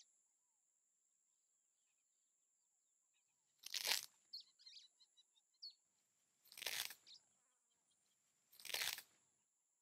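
Three short, soft swishes a couple of seconds apart, with faint high chirps after the first: cartoon sound effects for an animated turtle popping up and moving.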